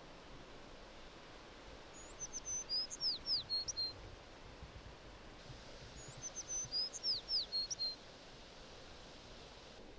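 A small songbird singing the same short phrase twice, about four seconds apart: a run of quick downward-sliding high whistles ending in a few short notes, over a faint steady outdoor hiss.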